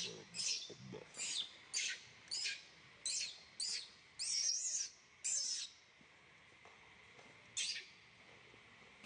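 Baby macaque crying in a string of short, shrill squeals that slide down slightly. Most come close together in the first six seconds, one is drawn out a little longer, and a last one comes near the end.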